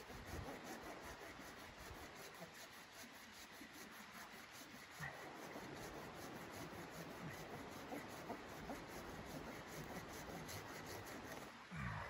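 A steel blade scraping and cutting along a split piece of firewood in repeated rubbing strokes, with a short louder scrape just before the end.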